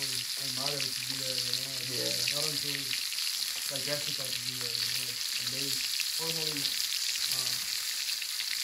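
Meat sizzling on the grate over glowing charcoal in a kettle grill: a steady crackling hiss. A low voice comes and goes underneath.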